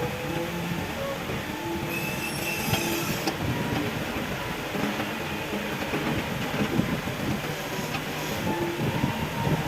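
Hitachi EX200 hydraulic excavator working, its diesel engine running under load with whining hydraulics that shift in pitch. About two seconds in there is a brief hissing squeal lasting about a second.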